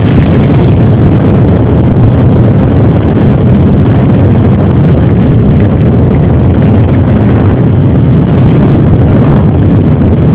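A crowd of off-road trail motorcycles with their engines running together close by. It is a loud, steady, overlapping engine rumble with no single bike standing out.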